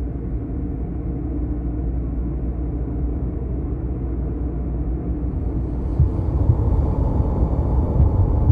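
Dark, low rumbling drone of a theatrical soundtrack. Deep irregular booms join about six seconds in, along with a faint high shimmer.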